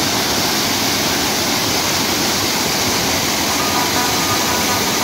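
Water rushing steadily as it pours through the openings of a concrete culvert and spills over a low step into the channel below. Faint thin tones come in near the end.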